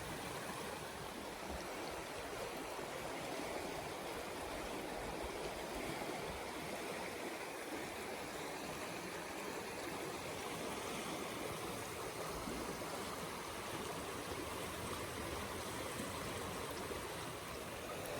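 Hiawassee River flowing over rocks: a steady rushing of water.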